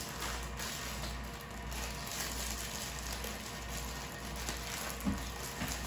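Quiet rustling of a plastic bag of flour being handled, over a steady background hiss and low hum.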